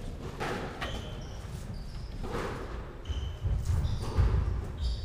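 Squash rally: the ball struck sharply a few times off racket and walls, with rubber-soled shoes squeaking and thumping on the wooden court floor, the thumping heavier in the second half.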